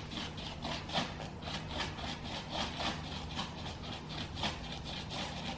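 Body filler (Bondo-type) and hardener being mixed by hand, heard as a run of short scraping strokes, about two a second.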